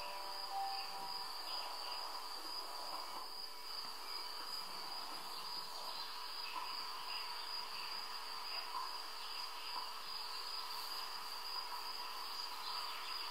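Crickets chirring in one continuous high trill that holds steady throughout.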